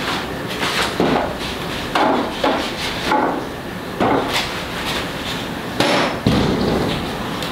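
A run of sharp knocks, roughly one a second, each followed by a brief ringing tail.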